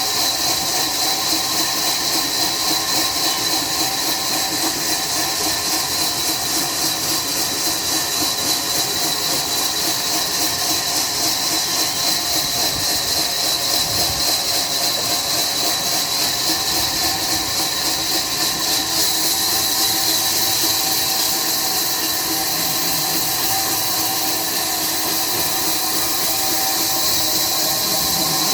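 Sawmill saw running steadily as it cuts through a log, a continuous loud mechanical drone with a strong high hiss.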